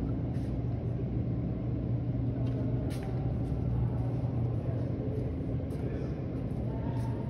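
A steady low mechanical hum with an even drone, plus a few faint clicks.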